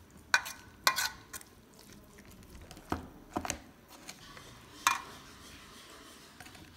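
Metal spoon knocking and scraping against a steel mixing bowl and a plastic tub as chopped salad is stirred and a seasoning is scooped out. About seven sharp, irregularly spaced clinks, with soft stirring sounds between them.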